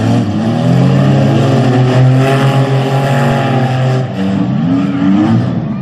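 Demolition derby cars' engines running under throttle as they race a figure-8 course: a steady engine note for most of the time, then an engine revving up in pitch near the end.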